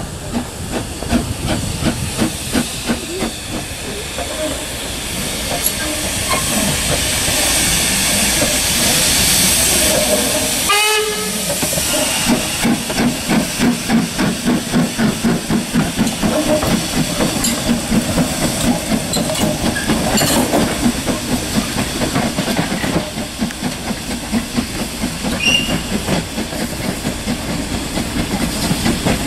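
Ex-British Army 0-6-0 saddle tank steam locomotive working under steam: a loud hiss of steam, then from about a third of the way in a steady run of exhaust chuffs, a few beats a second, as it passes close.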